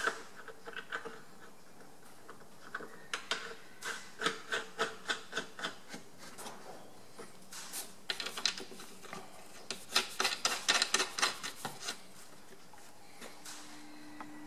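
Sheet-metal gear cover being fitted back onto the end of a metal lathe: a string of scrapes and metallic clicks as it is handled and fastened, in short groups that come faster toward the end. Near the end a low steady hum begins.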